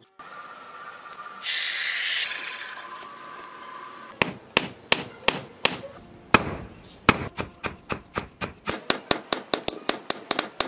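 Hand hammer striking red-hot steel on a steel anvil, each blow a sharp metallic clang with a ring, about three a second at first, then quickening to about five a second. A short loud hiss comes about a second and a half in.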